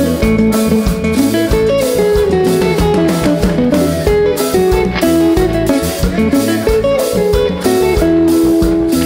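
Live band playing a cumbia and lambada medley: an electric guitar plays a single-note melody over a steady drum-kit and bass groove, holding a long note twice.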